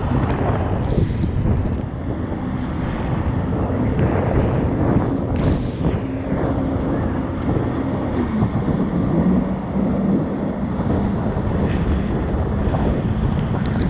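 Jet ski engine running under way, with wind buffeting the action-camera microphone and water rushing past; the engine pitch shifts a little near the middle.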